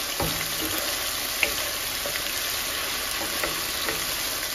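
Cubed chicken sizzling steadily as it fries in oil in a ceramic pan, stirred with a wooden spatula that clicks against the pan a few times.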